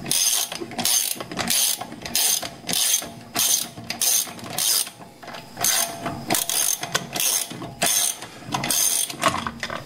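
Ratchet wrench, likely on a 17 mm socket, clicking through a run of strokes about one and a half a second as the rear wheel's lug bolts are undone, with a short pause about five seconds in.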